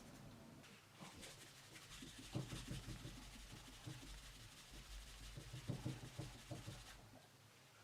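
Faint, irregular rubbing of a leather edge being burnished, starting about a second in and stopping shortly before the end.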